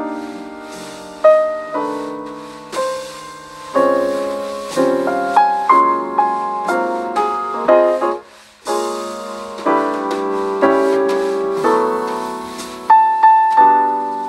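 Background piano music, single notes and chords struck and left to ring, with a brief pause about eight seconds in.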